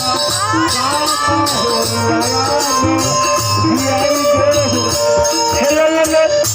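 Instrumental passage of a Bhojpuri sohar folk song between sung lines: a melody over a steady drum beat with jingling percussion.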